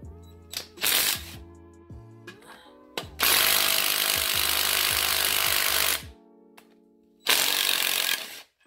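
DeWalt cordless power tool running on bolts in a Toyota 1JZ engine block, in three bursts: a short one about a second in, a long one of about three seconds, and another near the end. Guitar music plays underneath.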